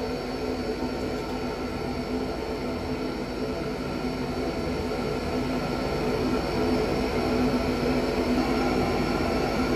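Dry ice blasting machine running with its compressed air: a steady rushing roar over a low hum, growing a little louder in the second half.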